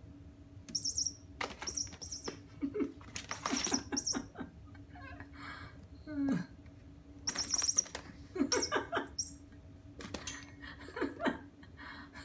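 Short bursts of high squeaky chirps come and go in clusters from the mouse chaser cat toy, over a steady low hum. Scattered rustles and knocks come from the kitten batting at the dangling toy mouse and climbing onto the books in the basket.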